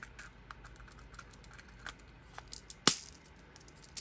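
Clear plastic lid being pressed onto a small bead-filled plastic shell: a run of light plastic clicks and ticks, with one much louder snap near three seconds in.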